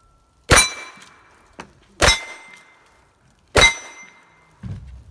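Three sharp metallic clangs about a second and a half apart, each ringing briefly with a bell-like tone: steel targets being hit by shots. A softer low thump follows near the end.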